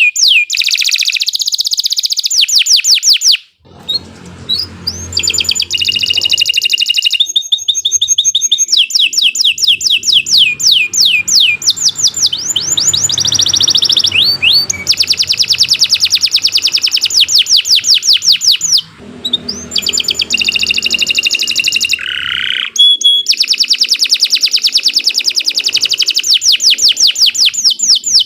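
Domestic canary singing a long, continuous song of fast rolling trills and rapid repeated high notes, breaking off only briefly twice.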